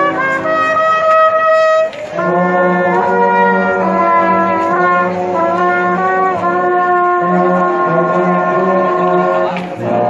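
Marching band brass section playing sustained, held chords of trumpets and trombones, with a short break about two seconds in and another near the end before the next phrase.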